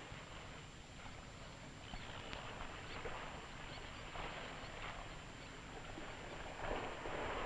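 Faint, noisy outdoor ambience on an old film soundtrack: steady hiss with a thin steady tone and low hum, and a few soft, irregular rustling swells, louder briefly near the end.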